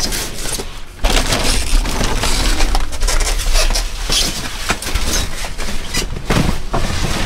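Trash being rummaged through by hand in a dumpster: plastic bags crackling and styrofoam packing pieces scraping and knocking together, in a dense run of rustles and clicks with a brief lull just before a second in.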